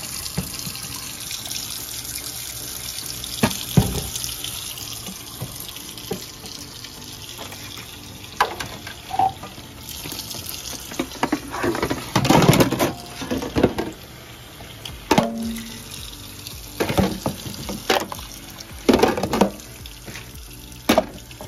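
Kitchen tap running into a stainless steel sink while plastic dishes and a cup are rinsed under it. Repeated knocks and clatters come as the dishes are handled, bunched about halfway through and again near the end.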